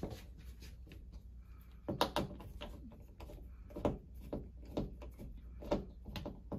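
Hand screwdriver backing out the screws of a thermostat wall plate: a handful of separate clicks and small knocks of metal on plastic, the loudest about two seconds in.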